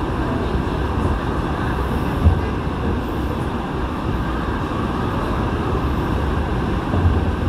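Seoul Subway Line 8 train running through a tunnel: a steady low rumble of wheels on rail, with one sharp knock about two seconds in.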